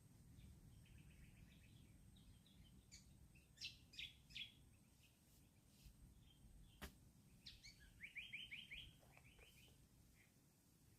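Faint birds chirping in short runs of quick high notes, with one sharp click about seven seconds in.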